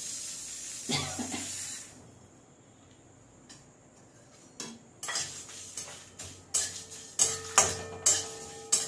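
Whole spices poured into a dry metal kadai with a brief rattling hiss. After a short lull, a metal spatula scrapes and clinks against the pan several times a second, stirring the spices as they dry-roast over low heat.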